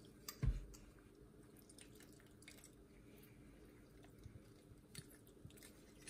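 Faint squishing and light clicks of a lime being squeezed in a hand-held metal citrus press, with one dull thump about half a second in.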